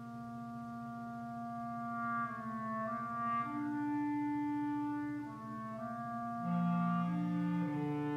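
Clarinet quartet playing long overlapping held notes that change pitch in turn, over a low, fast-pulsing note, swelling louder as it goes.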